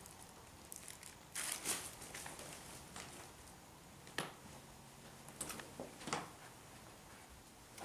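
Faint footsteps and scuffs, a handful of separate steps with quiet room tone between them.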